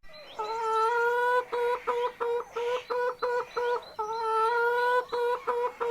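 A steady pitched tone on one note: a long held note about a second long, then a quick run of short beeps at about four a second on the same pitch, the whole pattern heard twice.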